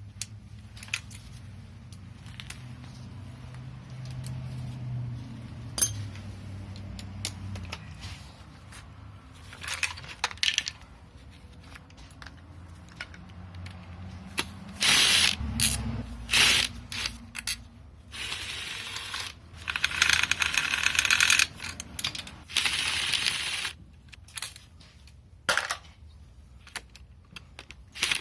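Wrench work on an engine: ratchet clicks and metal parts and tools clinking, with several loud bursts of a power tool, each about a second long, in the second half.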